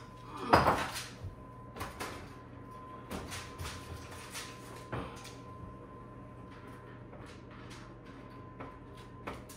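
Wall oven door pulled open with one loud clunk about half a second in, then a run of lighter knocks and clatters as a heavy 9x13 baking dish is worked onto the oven rack.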